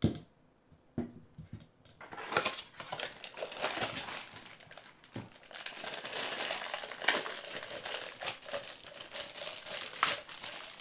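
Packaging crinkling and rustling as a prize tumbler is unwrapped, with small clicks and crackles throughout. A sharp knock comes at the very start and a few lighter knocks about a second later.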